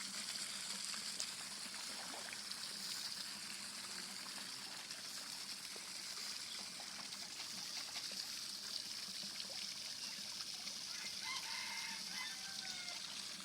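Water trickling and splashing steadily. Near the end there are a few short bird calls.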